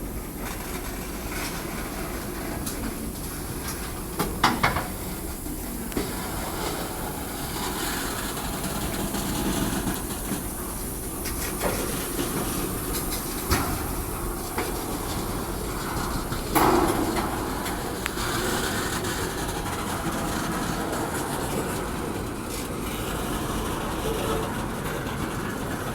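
Freight cars, tank cars among them, rolling slowly past, with wheels clacking over the rail joints and a few sharp knocks, loudest about four seconds in and again past halfway.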